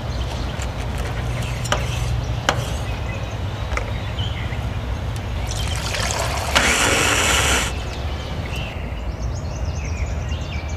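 Food-prep sounds: a few sharp clicks of a knife cutting grilled pineapple on a wooden board, then liquid pouring loudly into a plastic blender cup for about a second, over a steady low hum.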